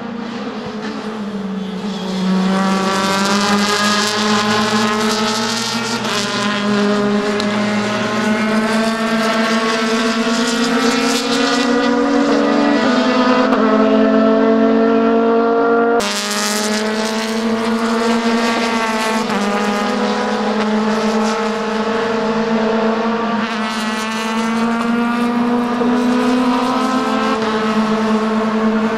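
Several open-cockpit sports-prototype race cars running at racing speed, engines at high revs, their pitch climbing through the gears and stepping down at each upshift. The sound jumps abruptly about halfway through.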